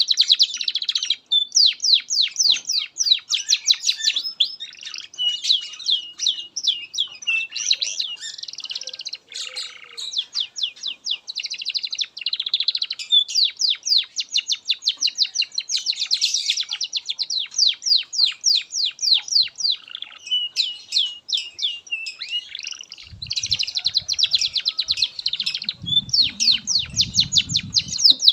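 Domestic canary singing a long, nearly unbroken song of high, fast trills and rapid repeated note series, changing from one run of notes to the next. A faint low rumble sits under the song near the end.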